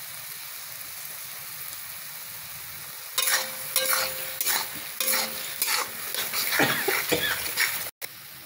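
Mashed eggplant frying in a metal kadhai with a steady sizzle. From about three seconds in, a metal spatula stirs the salt into the mash, scraping against the pan in quick, irregular strokes.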